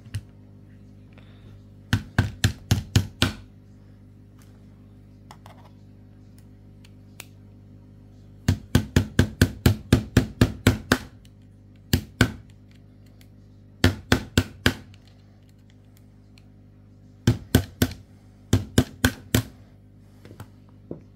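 Bursts of quick sharp taps, several to a burst with pauses between: the back of a screwdriver handle knocking on a small screwdriver held as a punch to drive a push pin all the way into an Umarex HDP .50 pistol's frame.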